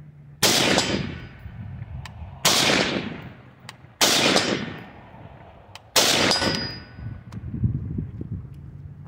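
Four single shots from a 20-inch AR-15-pattern rifle in 5.56, fired one at a time about one and a half to two seconds apart, each trailing off over about a second.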